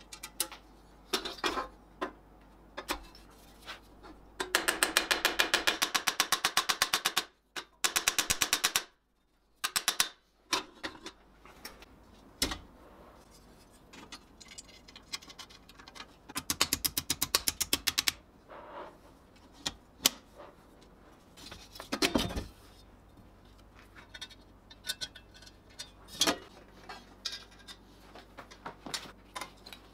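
Metal hardware being fitted to a polished steel helmet: scattered clicks and clinks of steel on steel, with three bursts of rapid, even ticking. The longest and loudest burst comes a few seconds in, and a few single knocks fall between the bursts.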